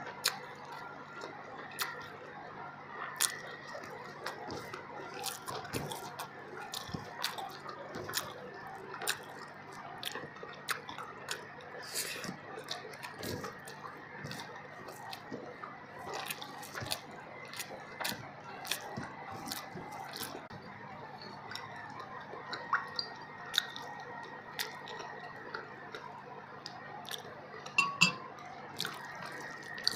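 Mouth sounds of eating fish biryani by hand: chewing with many irregular wet clicks and lip smacks, over a faint steady hum.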